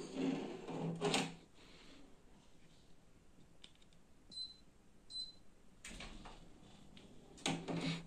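Two short, high electronic beeps about a second apart from a Daikin mini-split air conditioner's indoor unit, the usual signal that it has received remote-control commands. Louder bursts of noise come at the start and again near the end.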